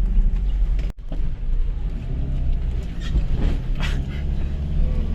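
Toyota HiLux running along a rough dirt track, heard from inside the cab as a steady low engine and road rumble. The sound cuts out abruptly for an instant about a second in.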